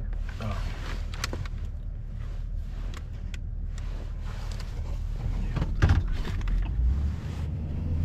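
Pickup truck engine running, heard from inside the cab as a steady low rumble, with clicks and rustling and one loud thump about six seconds in. About seven seconds in the rumble shifts higher as the truck pulls away.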